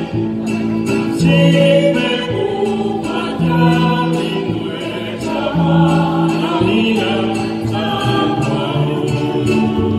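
Mexican folk dance music: a choir of voices singing over a bass line that changes note about every second, with light percussive ticks.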